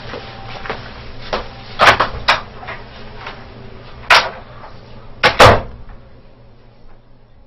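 Exam-room door opened and shut as someone leaves: a few sharp clicks and knocks, the loudest pair a little over five seconds in, over a faint steady room hum.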